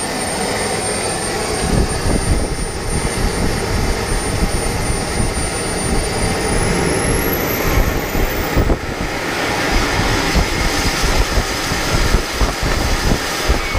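King Tech K-80 micro turbojet engine running at high power: loud jet rush with a high-pitched turbine whine. About six seconds in, the whine climbs steeply as the engine spools up further, then holds at its top pitch.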